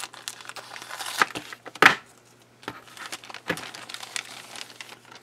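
Thin clear plastic bag crinkling and crackling as it is slit with a hobby knife and pulled open, in irregular crackles with two sharper ones about one and two seconds in.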